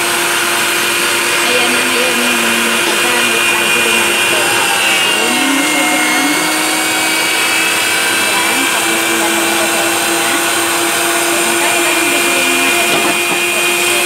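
Panasonic electric meat grinder running under load with a steady hum, grinding food that is pushed down through its feed tray.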